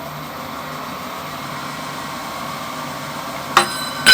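Belt-driven machine tool running steadily, its belts just changed for a higher spindle speed. A sharp metallic knock comes near the end, and a loud ringing metal clang starts right at the end.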